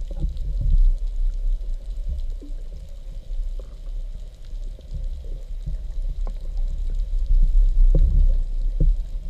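Underwater noise picked up by a camera in its housing: a low, uneven wash of water that swells and fades as the diver moves, with scattered faint clicks and crackles.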